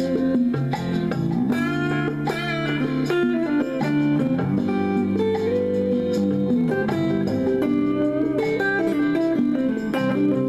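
A store-bought backing track playing: slow band music with electric guitar and sustained chords changing every second or two.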